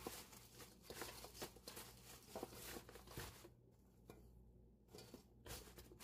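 Faint rustling and crackling of salted green onions being turned and pressed by hand in a stainless steel bowl, pausing briefly a little past halfway.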